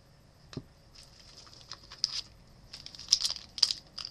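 Leaf MMA 2010 trading card pack wrapper crinkling as it is handled, soft clicks at first, then a quick run of sharp, louder crinkles from about two seconds in.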